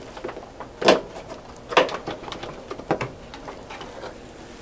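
Plastic knocks and clicks of a front-load washer's new drain pump being worked up into its mounting under the tub by hand, with three louder knocks about a second apart.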